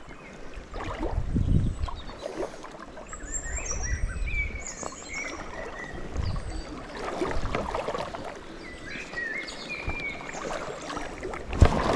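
River water lapping and splashing around a wading fly angler, with uneven low rumbles. A bird sings short chirping phrases in the background, and a sharp knock comes near the end.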